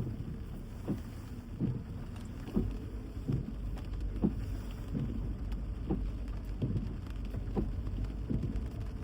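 Rain on a car over a low steady rumble, with the windscreen wipers sweeping back and forth about once a second.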